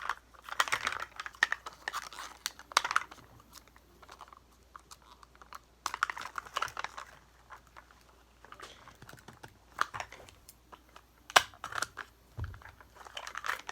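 Thin plastic toy-capsule wrapping crinkling and tearing in short irregular bursts, mixed with small plastic clicks and taps as the miniature items are handled. Several bursts come with quiet gaps between them.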